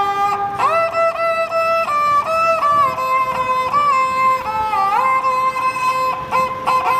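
A homemade ravanhatta-style bowed fiddle, with a bamboo neck, a half-coconut-shell body covered in goat skin and violin strings, playing a melody. Its held notes slide up and down from one to the next.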